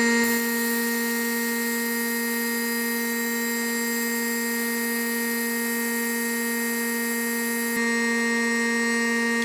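Compressed-air vacuum fluid extractor running: a steady air hiss with a strong humming whistle as its venturi pulls vacuum on the fuel line to draw out fuel and rust particles from the gas tank. The tone shifts slightly near the end.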